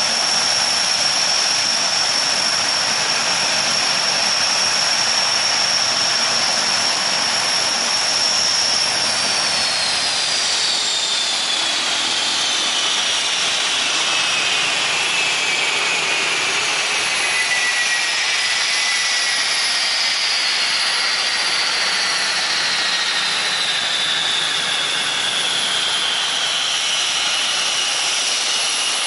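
Lockheed C-130 Hercules's Allison T56 turboprop engines running with a loud rushing noise and a steady high whine. About nine seconds in the whine begins to fall slowly in pitch, in several strands, as the engines wind down after shutdown.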